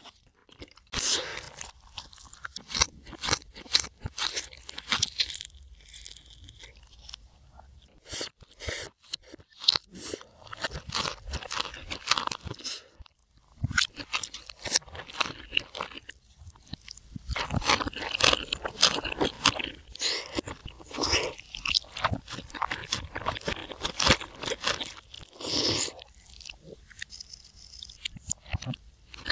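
Close-miked mouth sounds of someone eating: chewing and crunching food, with many irregular crisp clicks and wet smacks.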